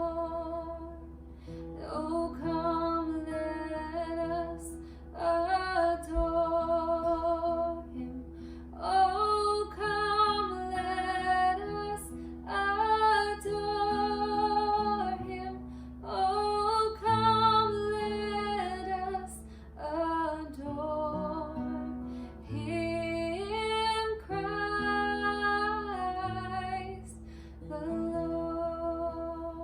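A woman singing a slow song to guitar accompaniment, in phrases a few seconds long with vibrato on the held notes.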